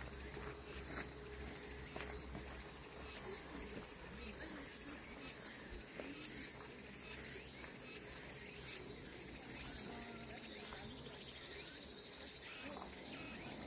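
Woodland insects trilling steadily at a high pitch, with a louder, even higher-pitched steady tone joining for about two seconds past the middle and again briefly after it.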